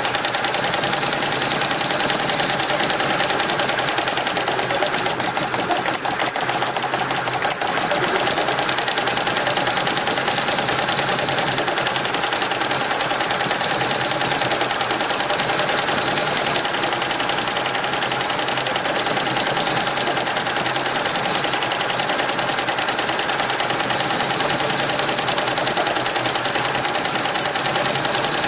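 Richpeace roll-to-roll computerised embroidery machine stitching at speed: a steady, fast run of needle strokes with a constant hum underneath.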